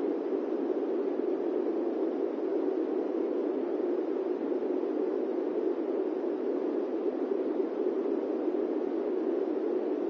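Steady fan noise, a deep, even rushing sound that stays constant with no changes.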